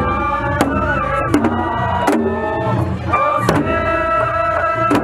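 Japanese festival music from a float: a high, wavering melody over taiko drum strikes that come about every three-quarters of a second.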